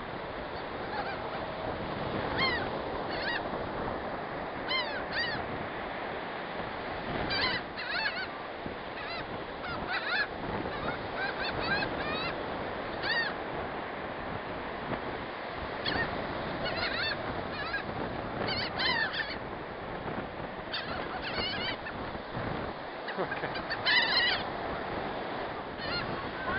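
A flock of gulls calling repeatedly, many short overlapping squawks, over a steady background rush.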